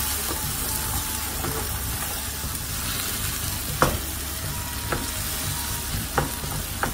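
Frozen minced onion and whole spices sizzling steadily in hot oil in a frying pan as they are stirred with a wooden spatula, which knocks sharply against the pan a few times in the second half.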